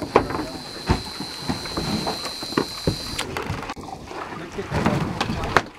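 Scattered knocks and thumps aboard a fishing boat over a steady noisy background, with a thin steady high whine through the first three seconds.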